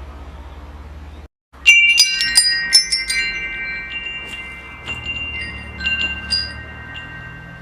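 Wind chimes ringing: a quick flurry of strikes about two seconds in, then scattered strikes while the tones ring on. A low steady hum comes before a brief dropout just ahead of the first strikes.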